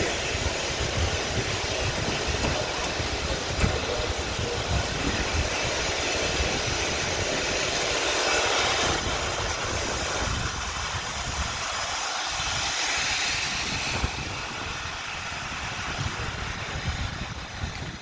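Racing cars running on the circuit at a distance, heard as a rush of noise that swells about halfway through and eases off again.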